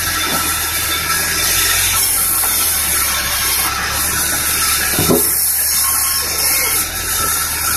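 Large bandsaw running and cutting lengthwise through medang timber: a loud, steady hiss of the blade in the wood over the low hum of the machine, with a single knock about five seconds in.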